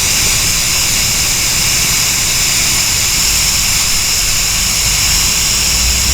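Steady hiss of blowing air from an air tool used on a freshly dyed vinyl door panel, with a low hum beneath it.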